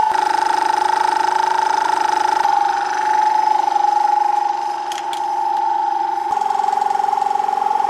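Dual-cylinder 12-volt portable air compressor running with a loud, steady hum as it inflates a freshly plugged car tire.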